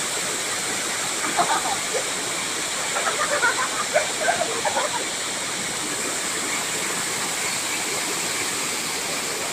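Small waterfall pouring steadily, with faint voices heard briefly between about one and five seconds in.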